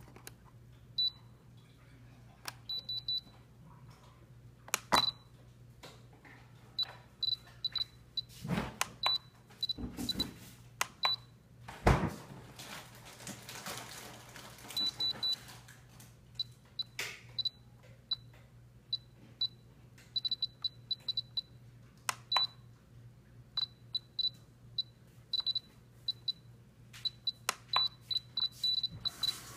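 T-SIX 2.4 GHz six-channel RC transmitter beeping as its buttons and dial are pressed to move through the menus: short high beeps, singly and in quick runs. A few louder knocks and rustles from handling the transmitter come about five seconds in and between eight and twelve seconds.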